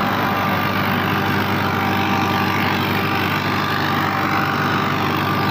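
Mahindra Arjun 555 DI Power Plus tractor's diesel engine running steadily under load while pulling a rotavator through the field.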